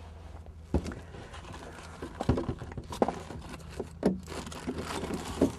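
Irregular knocks and clunks of someone rummaging and handling things inside a small sailboat's cabin, with light rustling between them.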